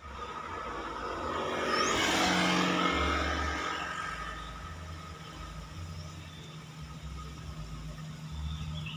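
A road vehicle passing close by. Its engine and tyre noise rise to their loudest about two to three seconds in, then fade into a steady low engine hum.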